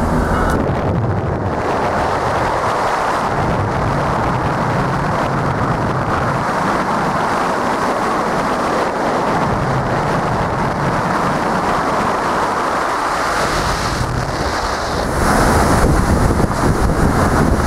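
Wind buffeting the microphone over the road and driving noise of a moving Citroën DS, a steady rush with no clear engine tone. The rush gets louder about fifteen seconds in, as the microphone goes out into the airstream.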